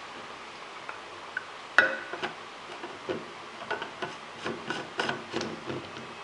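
Black screw-on lid of a lens-shaped stainless steel travel mug being put on and twisted shut: one sharp knock about two seconds in, then a run of small irregular clicks as the lid is turned.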